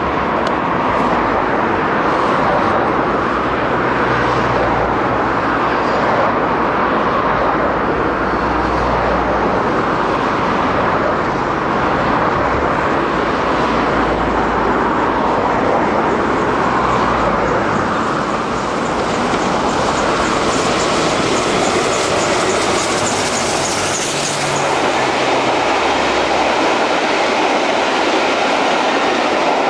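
GWR King class four-cylinder 4-6-0 steam locomotive No. 6024 King Edward I working hard at speed, running past close by with a steady, heavy rumble. Roughly two-thirds of the way through, a bright, high-pitched clatter of wheels on rail comes in for several seconds as it goes by, and then the coaches roll past.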